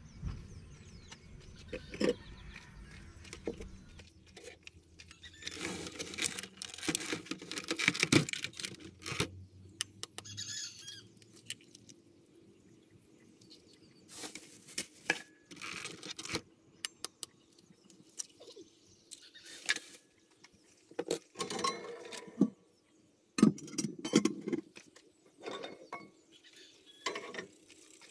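Scattered taps, clinks and clatter of kitchen handling: eggs cracked into a bowl and a pot and frying pan moved about on a portable gas stove. A low rumble in the first few seconds fades out.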